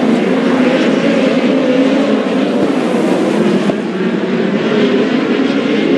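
Engines of several open-wheel dirt-track race cars running together, a dense steady drone whose overlapping pitches waver up and down.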